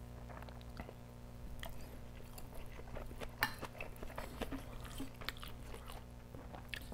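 Close-miked chewing of kimchi fried rice: faint, irregular soft mouth clicks and crunches over a low steady hum.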